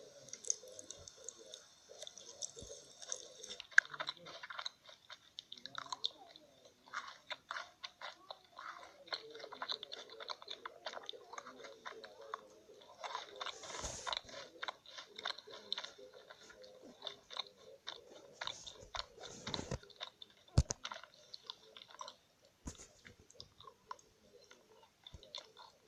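Close-miked chewing and crunching of food, ASMR-style eating sounds: irregular crisp crunches and mouth clicks, with heavier bites about 14 and 20 seconds in.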